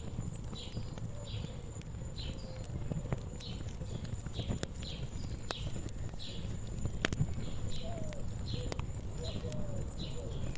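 Wood fire crackling, with scattered sharp pops over a low rumble, and a bird calling over it, short high calls about twice a second.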